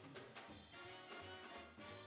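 Orchestral light music with a steady beat, played fairly quietly.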